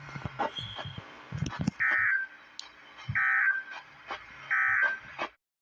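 Emergency Alert System digital data bursts: three short, identical buzzy bursts about a second and a half apart. They are the end-of-message code that closes the tornado warning.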